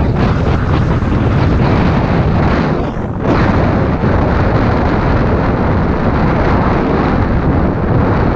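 Loud, steady wind buffeting on a GoPro's microphone on a moving road bike, with a brief lull about three seconds in.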